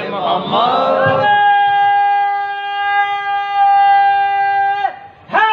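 Men chanting together briefly. Then a single man's voice calls out, holding one long, steady note for nearly four seconds. It breaks off, and near the end a crowd of men shouts back.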